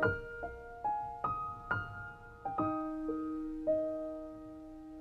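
Slow, gentle solo piano music: a run of single struck notes that ends on a held chord, which rings on and fades away.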